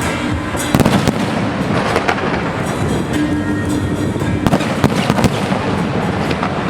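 Aerial fireworks bursting in quick succession, a dense run of bangs and crackles with heavier clusters about a second in and again around four to five seconds in, with music playing underneath.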